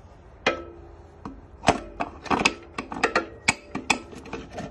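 Steel gear parts knocking and clinking as a geared assembly is worked down by hand into a 4L60E transmission case: about a dozen sharp metallic knocks, several of them ringing briefly.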